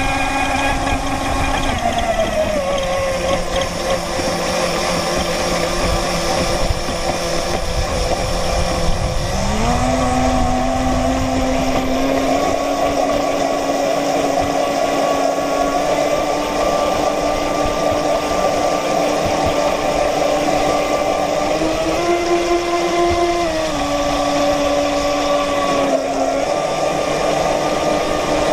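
Radio-controlled model boat's motor heard from on board, a steady drone whose pitch falls and rises as the throttle changes. Water and wind rush past the hull throughout.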